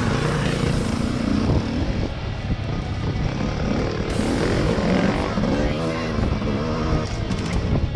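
Enduro dirt bike engine revving up and down under load while climbing, its pitch rising and falling over and over.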